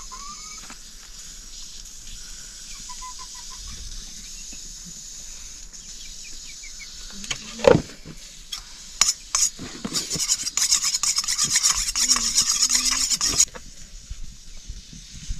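Scraping and rubbing during cooking work: a single loud knock about eight seconds in, then rapid, continuous scraping from about nine seconds that stops abruptly some four seconds later.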